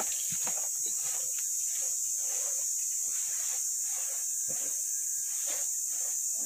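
Steady high-pitched insect chorus, with scattered irregular knocks and scrapes of material being handled.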